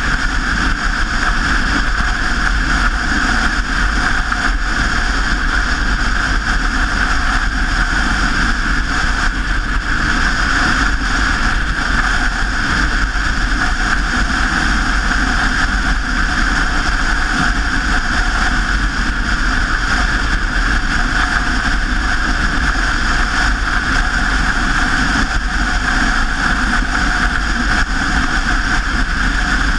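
Steady rushing noise of a bicycle in motion: wind on the microphone and tyres on the road, with a deep rumble and no distinct events.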